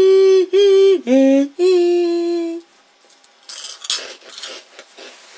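A high voice singing a few long held notes without words, stepping down and back up in pitch, for about two and a half seconds. It breaks off into faint rustling and a steady hiss.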